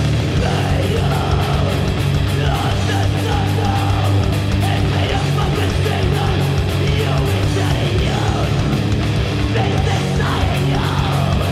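A heavy-metal band playing loud, aggressive music, with yelled vocals over guitar.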